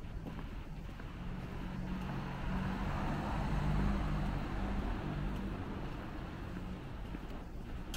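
A motor vehicle passing by on the street, its engine hum and tyre noise swelling to a peak about halfway through, then fading away.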